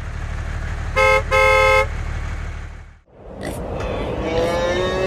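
Tractor engine running steadily, with a two-tone horn tooting twice about a second in, a short toot then a longer one. After a sudden break near three seconds, a different noisy rumble with faint wavering tones follows.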